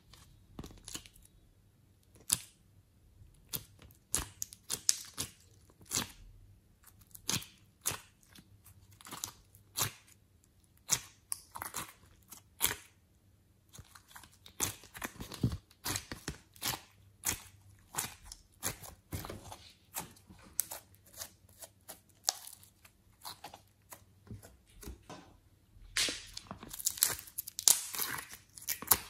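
Glossy slime pulled and peeled out of the cells of a plastic ice-cube tray by fingers: a run of sharp, sticky clicks and pops at an irregular pace. Near the end it turns into denser sticky crackling as the slime is squeezed and pressed together.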